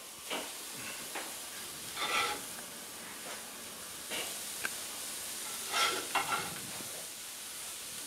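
Raw ground-chuck burger patties sizzling on a hot Weber kettle grill grate over the fire as they are laid on with a metal turner, with several short scrapes and taps of the turner, the loudest about two and six seconds in.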